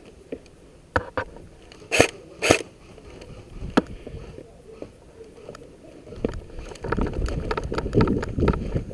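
Handling and movement noise from an airsoft player's body-worn camera and gear: scattered clicks and knocks, two sharp loud bursts about two seconds in, and a heavier rumble of movement with many small knocks over the last three seconds.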